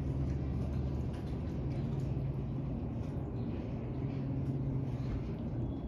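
A steady low hum, with faint clinks and scrapes of metal tongs twirling creamy fettuccine in a pan.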